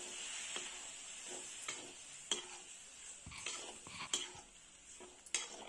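Perforated metal spatula stirring a wet vegetable-and-dal mixture in a metal kadhai, scraping and giving a few sharp clinks against the pan, over a faint sizzle of frying.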